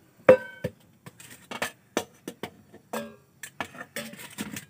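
Water boiling hard and sputtering in a hot karahi just after being poured in, with irregular crackles and pops. A single metallic clink rings briefly about a third of a second in.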